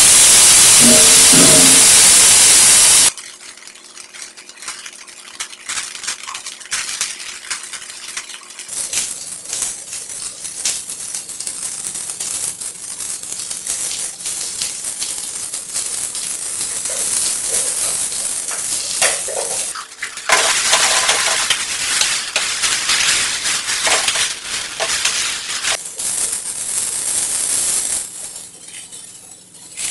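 Vegetables sizzling in a hot steel pan, a loud hiss as soy sauce hits it for the first three seconds, cutting off abruptly. Then quieter sizzling with the clicks and scrapes of the vegetables being stirred and tossed in the pan.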